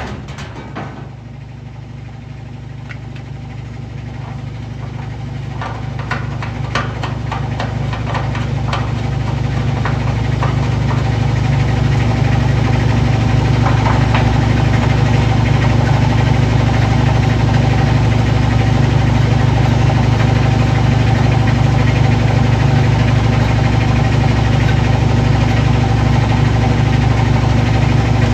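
Washing machine running: a loud, steady hum that builds over roughly the first twelve seconds and then holds level, with scattered clicks and rattles in the first several seconds.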